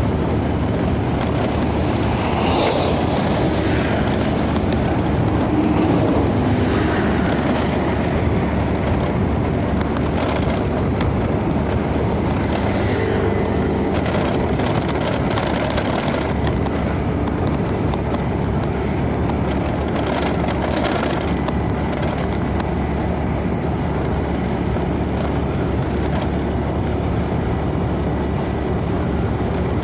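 A motor vehicle's engine droning steadily at cruising speed, with road and wind rush, heard from on board as it drives along.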